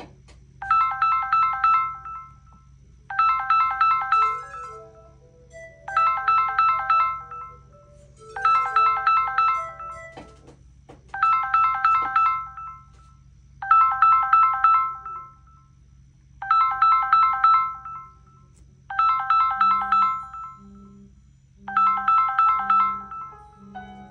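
Smartphone incoming-call ringtone from a messaging app: nine trilling bursts of rapid high pips, one about every 2.7 seconds. Fainter, lower beeps sound underneath in the second half.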